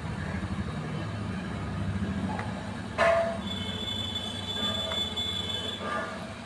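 A steady low rumble with a fast flutter, like a passing vehicle or machinery in the background. A sharp knock comes about three seconds in.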